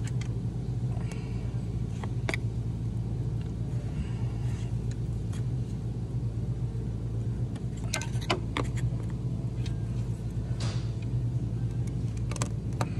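A steady low hum throughout, with a handful of short clicks and scrapes from a screwdriver prying at the edge of a plastic valve cover stuck to the cylinder head by its rubber gasket.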